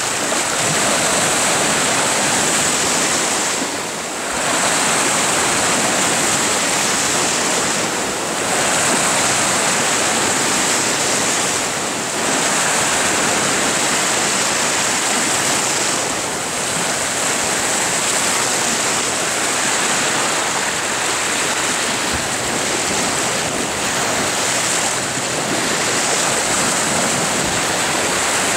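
Sea surf breaking and washing over a rocky shoreline in a choppy sea. It is a steady rush of water noise that eases briefly every few seconds.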